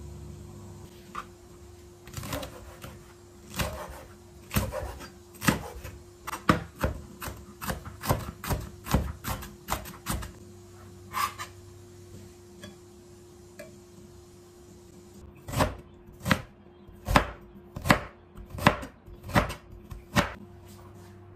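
Chef's knife chopping on a plastic cutting board in sharp strikes about two a second, slicing green onions, then, after a lull of a few seconds with only light taps, slicing fresh ginger in a second run of strikes.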